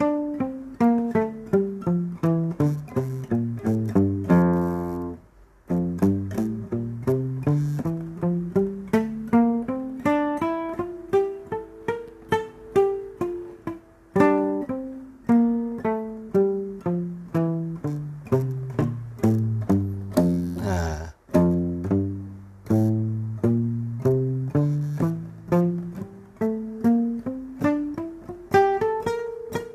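A nylon-string classical guitar plays a scale as single plucked notes, several a second. It runs down from the high strings to the low ones and back up, over and over, with a short pause about five seconds in and a brief break with a string scrape about two-thirds of the way through.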